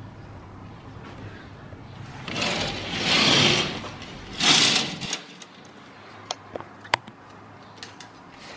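Curtains being drawn open along their rail in two long scraping pulls, the second shorter, followed by a few light clicks.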